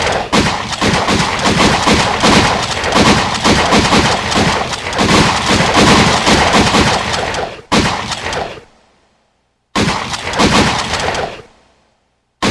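Gunshots at an indoor shooting range, each shot echoing off the enclosed walls. For about seven seconds many shots fire in quick overlapping succession. Then two single shots follow a couple of seconds apart, each ringing out in a reverberant tail before silence.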